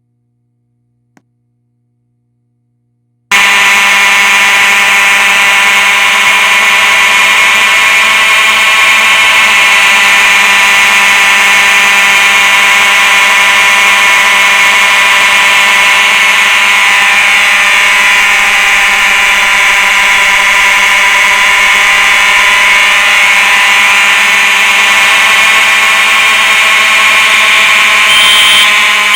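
Fire alarm horn that comes on suddenly about three seconds in and sounds very loud and unbroken: one steady buzzing tone, not in pulses.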